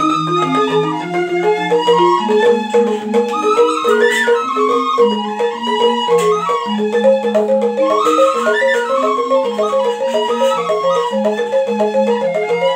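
Balinese gamelan rindik: bamboo xylophones in slendro tuning struck with mallets in a fast, even interlocking pattern, with bamboo suling flutes playing a held, gliding melody above.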